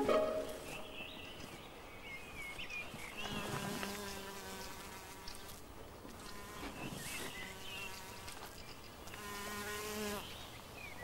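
An insect buzzing as it comes and goes, three passes of about a second each, with faint bird chirps.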